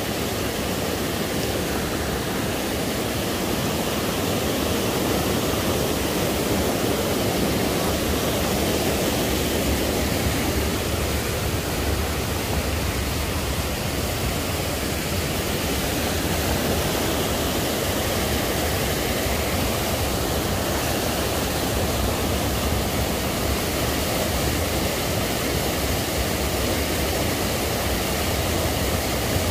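A small waterfall cascading over rocks in a stream, giving a steady, unbroken rush of water.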